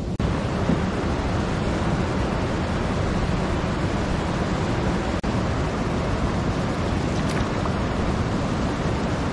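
Steady roar of rushing water from a waterfall and its rapids, an even full rushing noise with two very brief breaks.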